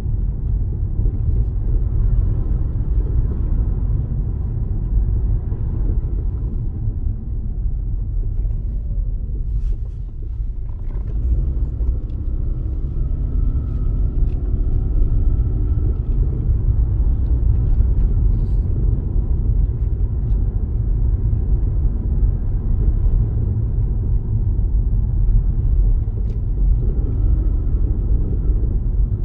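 Steady low rumble of engine and tyre noise heard inside a moving car's cabin. It eases off briefly about ten seconds in, then picks up again.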